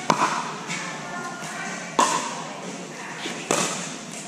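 Pickleball paddles striking a plastic pickleball in a rally: three sharp pops about a second and a half to two seconds apart, echoing in a large indoor hall.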